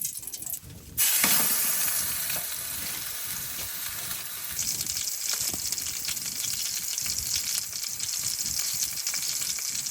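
Small wood stove burning: a steady sizzling hiss with fine crackles. It starts suddenly about a second in and turns brighter a few seconds later.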